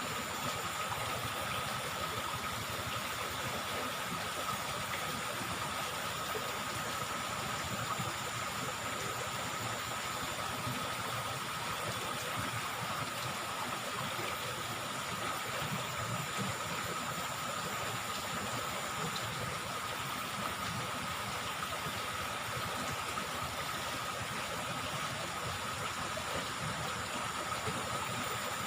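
Steady rush of flowing river water, even and unbroken, with a thin steady high hum over it.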